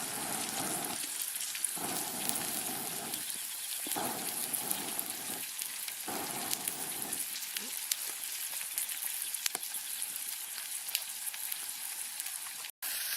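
Steak sizzling on a hot grill over a campfire: a steady hiss with scattered pops and crackles.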